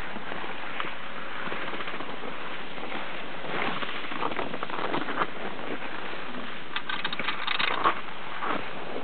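Ride on a platter ski lift: a steady hiss, with two spells of clicking and rattling partway through and near the end as the haul rope and its hangers run over the rollers of a support tower being passed.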